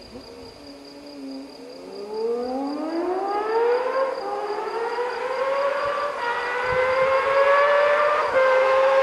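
Modified Honda CBX1000 inline-six with an aftermarket exhaust, approaching at speed and accelerating hard through the gears. Its note rises in a wail, dips at each upshift and climbs again, and grows steadily louder as the bike nears.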